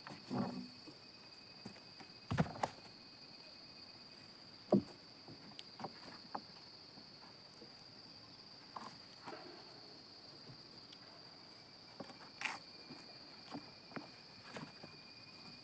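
Scattered short knocks and thumps over a steady high-pitched whine; the chainsaw is not running.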